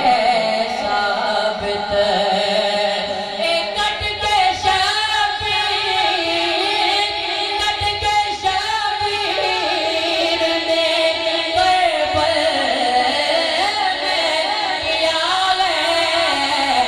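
A man sings a devotional Urdu poem into a stand microphone. He draws out long notes that waver and bend in melismatic runs.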